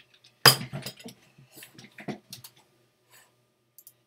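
Dishes and serving utensils clattering: a sharp knock about half a second in, followed by lighter clicks and taps of metal spoons against stainless saucepans and a bowl as a plate of food is served.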